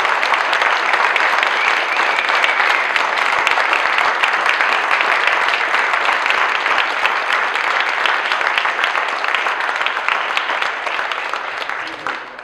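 Seated audience applauding, a dense steady clatter of many hands clapping that starts to die away near the end.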